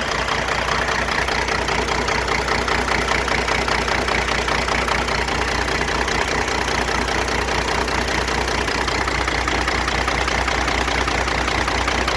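Diesel engine idling steadily with its valve covers off. The engine has a popping and pinging that the owner traces to an overfuelling injector, number 2.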